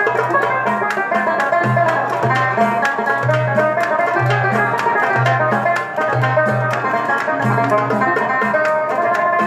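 Banjo played with a plectrum, picking a quick melody in an instrumental passage, over low bass notes that repeat on a steady beat.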